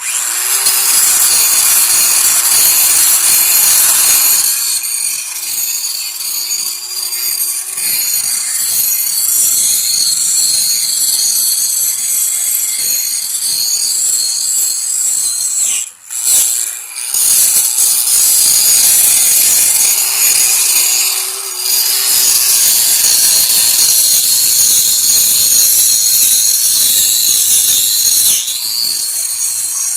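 Angle grinder running at full speed and cutting into the hairy fibrous husk of a palm tree trunk: a steady motor whine over a loud grinding hiss. The sound drops out for a moment about halfway, then carries on.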